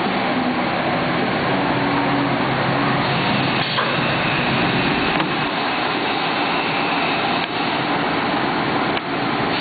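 Biesse Skipper 100 CNC panel machine running: a loud, steady whir of motors and air. A high whine comes in about three and a half seconds in and fades a couple of seconds later, and a few short knocks break the noise.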